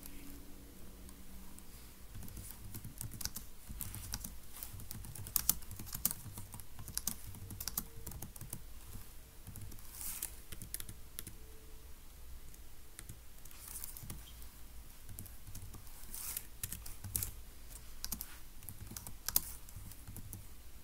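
Typing on a computer keyboard: irregular key clicks in short runs with brief pauses.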